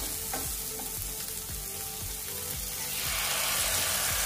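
Chopped vegetables sizzling in a hot frying pan while being stirred with a wooden spatula. The sizzle grows louder about three seconds in, as tomato puree goes into the pan.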